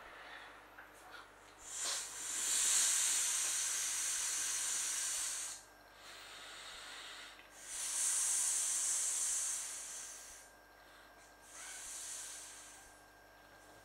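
An inflatable clownfish pool toy being blown up by mouth: three long breaths are blown into its valve, each an airy hiss lasting a few seconds, the first the longest.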